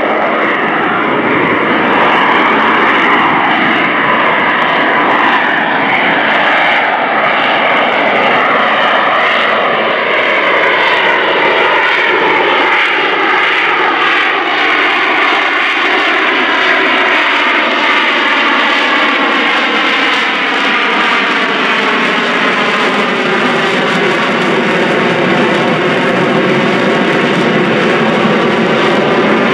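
AV-8B Harrier II's Rolls-Royce Pegasus turbofan running loud and steady, a dense jet roar and whine whose tones slide slowly up and down in pitch.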